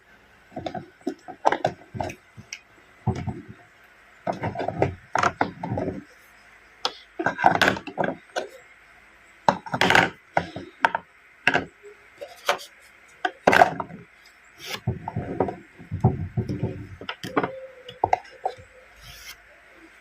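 Small plastic toy pieces being handled, set down and knocked together: irregular clicks, taps and short clatters, some single and some in quick runs.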